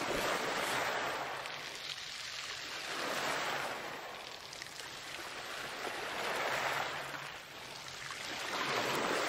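Surf washing up and back over a beach of rounded pebbles, swelling and fading about every three seconds.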